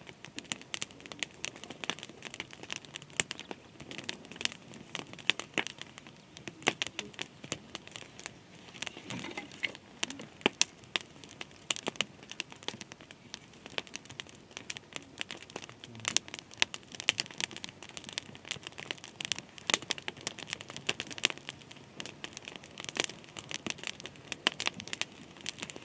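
Dense, irregular crackling and crinkling, many small sharp clicks close together with no steady rhythm.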